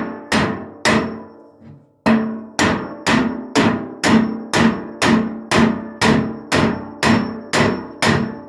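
Hammer blows on metal, about two a second with a short pause after the first second, each strike ringing on briefly; the kind of knocking used to drive a drum bearing in or out of a Zanussi automatic washing machine.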